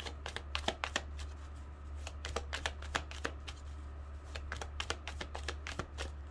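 A deck of tarot cards being shuffled by hand: a quick, irregular run of light card clicks and flicks, over a steady low hum.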